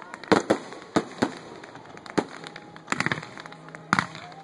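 Fireworks going off: sharp bangs and pops at irregular intervals, with a quick cluster of crackling reports about three seconds in.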